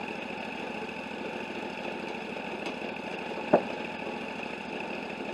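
Wood-Mizer LT40 portable sawmill's engine running steadily at idle, with one sharp knock about three and a half seconds in.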